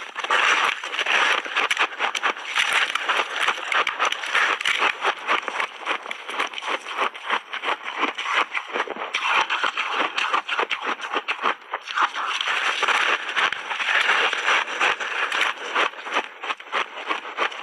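Close-miked crunching and chewing of frozen ice rolls: a steady run of crisp, crackling crunches as the ice is bitten and ground between the teeth.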